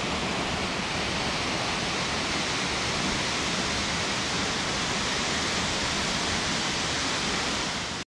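Steady rush of a waterfall: the first tier of Shinogo Falls, white water pouring down a rock face into a pool.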